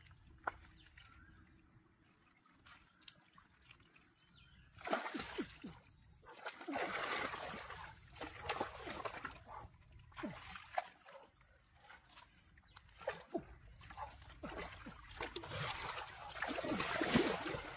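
Shallow stream water splashing and sloshing again and again as a wooden stick is jabbed and stirred into it, starting about five seconds in, after two sharp knocks near the start.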